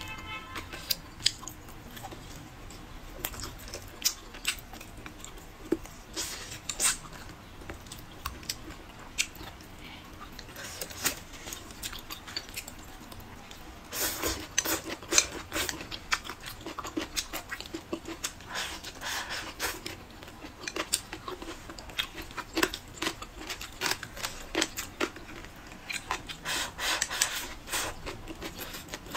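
Close-miked chewing and mouth sounds of a person eating braised pork ribs, blistered green peppers and cabbage with rice: a run of wet smacks and clicks, busiest about halfway through and near the end.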